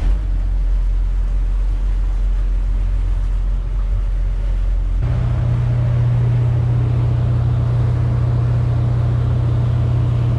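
Volvo Penta D6 380 diesel sterndrive engine of a Marex 310 motor boat running steadily under way, heard from inside the cabin. About five seconds in, the engine hum steps up to a higher steady note, with the rush of water from the wake over it.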